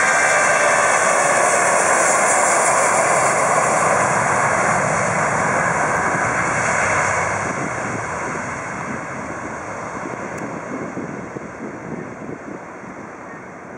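Airbus A340-300's four CFM56 turbofans at takeoff power during the takeoff roll: a loud jet roar with a high whine. About halfway through it begins to fade steadily as the airliner moves away down the runway.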